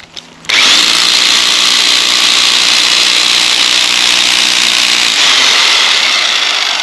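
Titan electric breaker hammering its chisel into the mortar bed under a brick wall. It starts about half a second in and runs steadily. The mortar is so hard that the breaker cannot get through it.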